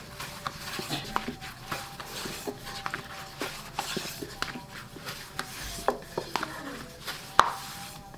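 Long, thin wooden rolling pin working flatbread dough on a wooden board: irregular clicks and light knocks of the pin against the board, with soft rubbing as it rolls. One sharper knock comes near the end.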